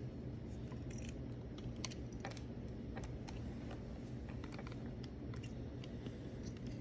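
Irregular small clicks and taps of plastic controller parts and a small spring being handled while fitting a replacement spring into an Xbox One controller's right trigger, over a steady low hum.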